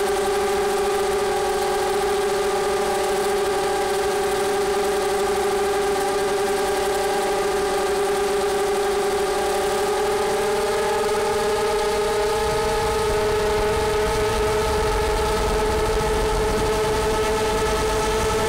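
An iFlight XL7 FPV quadcopter's motors and propellers whine steadily in flight, and the pitch rises slightly about ten seconds in. A low rumble grows underneath in the last few seconds.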